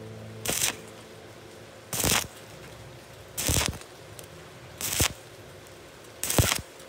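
Stick-welding arc on thin galvanized steel tubing: a low hiss that swells into a loud crackle about every second and a half, five times, as the electrode is worked up the vertical joint in a stepped rhythm.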